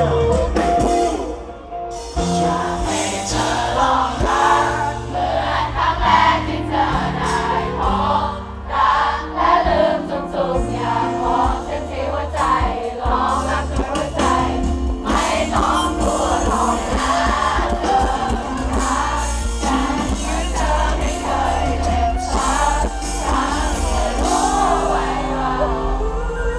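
Live band playing a Thai pop song through the concert PA, with many voices singing along together over a steady bass line.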